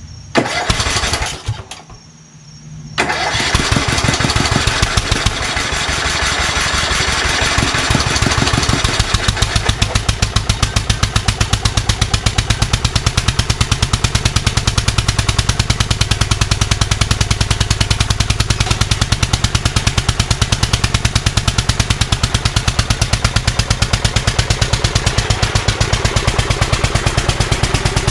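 Lawn tractor's small gasoline engine cranked over and catching about three seconds in, then running on with a fast, even exhaust beat. The owner believes this engine has bad valves and needs a new cylinder head.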